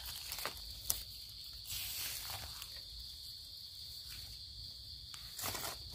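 Forest insects droning in one steady high-pitched band, with a few short scrapes and rustles from a knife digging through leaf litter and soil.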